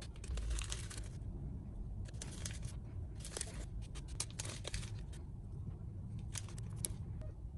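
Dry scraping and rustling from hands-on work, in a series of short scrapes spread over a few seconds, over a low steady rumble.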